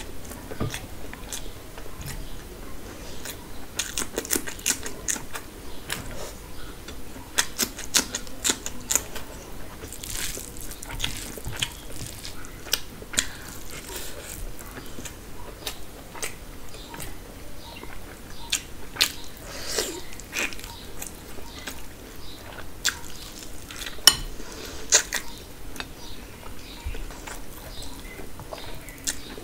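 Close-miked eating sounds: chewing and lip smacks, with irregular soft clicks and wet noises of fingers working rice and mutton, as the food is eaten by hand.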